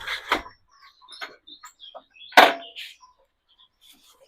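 Scattered knocks and clicks of tools and parts being handled on a motorcycle, with a cluster of knocks at the start and one sharp, louder knock about two and a half seconds in.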